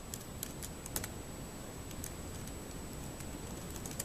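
Acer C7 Chromebook keyboard being typed on: scattered keystroke clicks, several in the first second, one at about two seconds and a few more near the end, as a password is entered at a terminal prompt.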